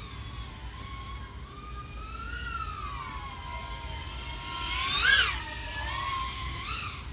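Motors and propellers of a 3.5-inch FPV quadcopter (iFlight AOS 3.5 V5, XING 1504 3100KV motors, Gemfan props) whining in flight, the pitch rising and falling with the throttle. A sharp throttle punch about five seconds in is the loudest moment, with a shorter rise near the end.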